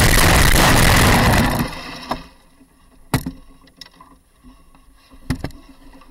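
A gravity racing cart sliding through loose dirt and gravel, a loud rushing noise that dies away about a second and a half in as the cart stops. After that it is quiet apart from a few sharp knocks.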